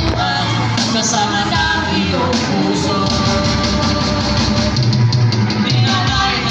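Live band playing a rock song, with a singer over electric guitar and drum kit.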